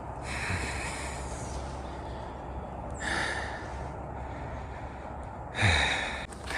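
Heavy breathing of a hiker climbing a steep trail uphill: three loud breaths about two and a half seconds apart, the last the loudest.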